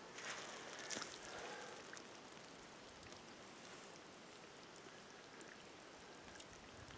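Faint trickling and dripping of pond water off a leech-trap line and weeds as the line is drawn up out of shallow water, with a few small drips near the end.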